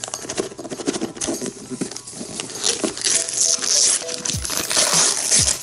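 Wrapping paper being torn and crinkled off a small gift box, the tearing louder in the second half.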